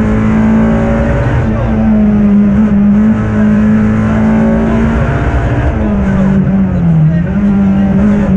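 Peugeot 206 RC rally car's 2.0-litre four-cylinder engine heard from inside the cabin, running hard at a steady pitch along a tarmac stage. Near the end it dips briefly in pitch twice and picks up again.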